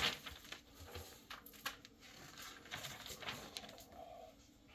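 Paper pages of an instruction manual being turned and handled, making soft, scattered rustles and light clicks.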